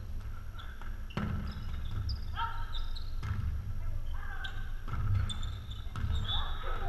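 Volleyball rally in a gymnasium: the ball is struck several times with sharp slaps from hands and forearms, echoing in the hall, while players call out to each other.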